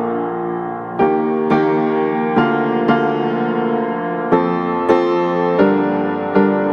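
Background piano music, notes and chords struck about once or twice a second and left to ring.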